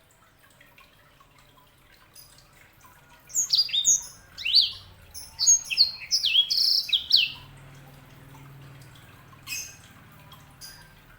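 A sanger songbird singing: a fast run of high chirps and sweeping whistles from about three seconds in to about seven and a half, with faint chirps before it and a short phrase near the end.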